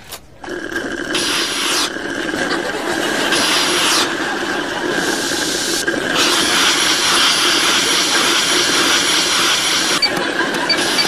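Coffee vending machine running loudly as it dispenses: a dense mechanical noise with a steady whine through it, starting about half a second in and shifting in character every second or two.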